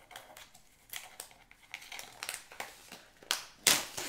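Packaging being opened by hand: a run of irregular crinkles and rustles, with a louder rustle about three and a half seconds in.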